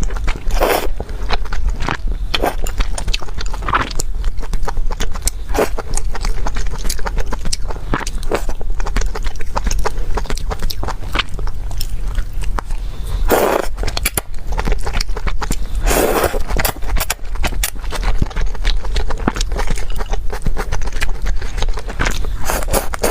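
Close-miked eating: steady chewing with many quick mouth clicks and crackles, and two louder bites or crunches in the second half.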